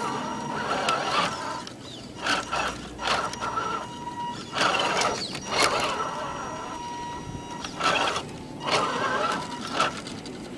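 Tamiya High Lift Hilux RC truck's electric motor and gearbox whining at a steady pitch, starting and stopping about four times as it crawls. Its tyres crackle and crunch through grass and dirt.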